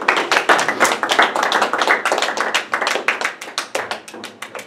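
A small group of people clapping by hand. The clapping is dense at first and thins out to scattered claps near the end.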